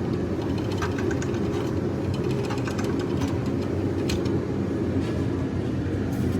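Goodyear retractable steel air hose reel winding its hose back in, with a run of short clicks and rattles, over a steady low hum.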